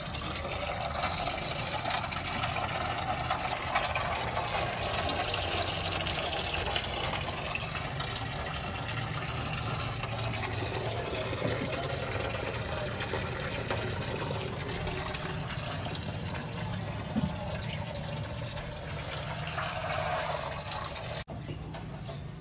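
Used engine oil draining in a steady stream from a Toyota Corolla Grande's oil pan and splashing into the catch container below, with a single short knock about seventeen seconds in. The pouring cuts off suddenly near the end.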